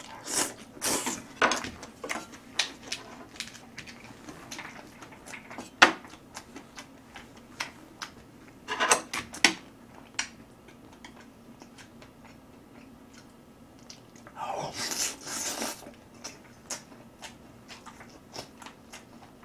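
A person eating carbonara buldak fried noodles with chopsticks: three long noisy slurps of noodles (just after the start, about halfway, and about three-quarters through), with wet chewing and lip-smacking clicks in between.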